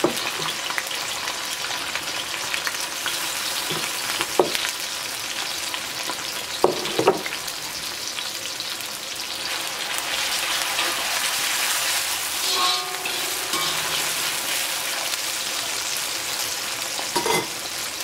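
Sliced onions deep-frying in hot oil in a wok: a steady sizzle, with a few short knocks about four seconds in, twice close together about seven seconds in, and again near the end.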